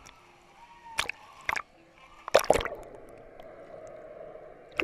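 Water splashing over a waterproof action camera at the surface: a few sharp splashes, the loudest about two and a half seconds in, then a steady muffled gurgle with the camera under water, and another splash at the very end.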